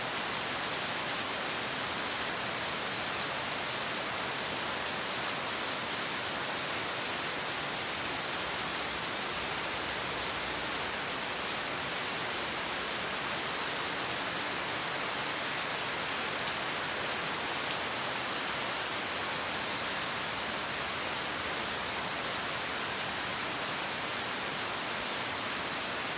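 Steady downpour of rain pattering on garden foliage, palm fronds and wet paving, a dense even hiss with a fine spatter of drops.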